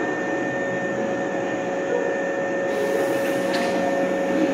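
Osaka Metro Sakaisuji Line subway train giving a steady rushing noise with a faint constant whine. A high hiss joins it about three seconds in.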